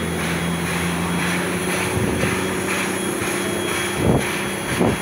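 NSW 59 class 2-8-2 steam locomotive 5917 working hard with a heavy train, its exhaust beating about twice a second over a steady drone. Two low thumps come about four seconds in and again a little later.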